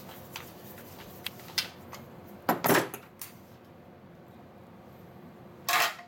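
Metal parts of an M4-style airsoft electric gun being handled and worked apart by hand: scattered small clicks and clinks, with two louder short rattles, one about halfway through and one near the end.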